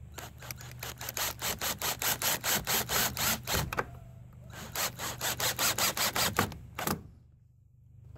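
Cordless drill driving screws through a door hinge into wood. It runs in two stretches of a few seconds with a short pause between, pulsing about four to five times a second, then gives one brief final burst.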